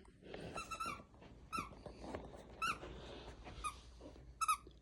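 A dog chewing a squeaky plush narwhal toy, setting off a string of short, irregular squeaks from its squeaker. Some come singly and some in quick runs of two or three.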